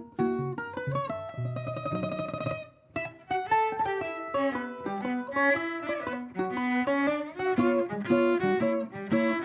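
A 10-string bandolim and a cello playing an instrumental duet: quick plucked melody notes over the cello line. Near three seconds in, the music drops away for a moment, then a dense run of notes resumes.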